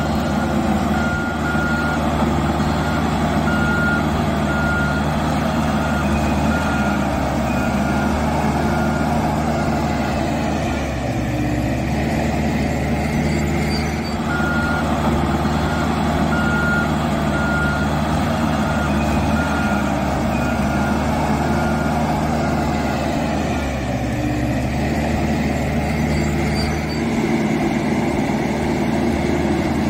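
Dynapac double-drum road roller's diesel engine running steadily while its reversing alarm beeps about once a second as it backs up. The beeping stops near the middle, picks up again a few seconds later, and stops again about three quarters of the way through while the engine keeps running.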